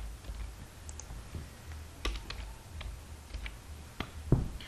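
Computer keyboard keystrokes: an irregular run of light clicks as a line of code is typed, with a heavier key tap about four seconds in.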